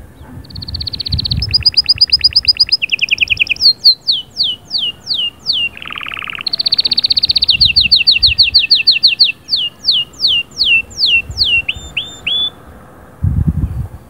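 Canary singing a long song made of rapid trills, runs of sharply falling whistled notes and, about six seconds in, a lower buzzy rattle. The song stops about a second and a half before the end.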